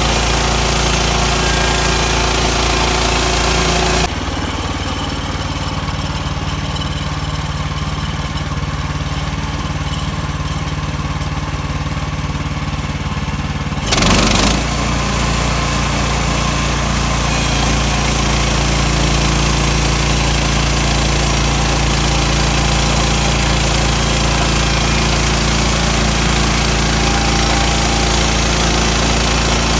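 A portable sawmill's engine running under load with the noise of the blade cutting through a log. About four seconds in the cutting noise falls away to a quieter engine run. A brief louder surge comes at around fourteen seconds, and then the full cutting noise returns.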